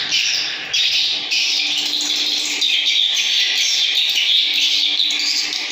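Swiftlet calls played through a swiftlet house's lure speakers: a dense, continuous high-pitched twittering, with a faint steady hum beneath it.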